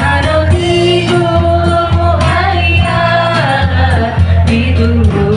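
A women's group singing a sholawat (Islamic devotional song) together over electronic keyboard accompaniment with a heavy, pulsing bass line.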